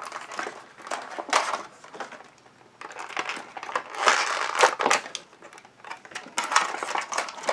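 Plastic and cardboard toy packaging crinkling and rustling as an action figure is worked free of its box, in irregular bursts with a short lull about two seconds in.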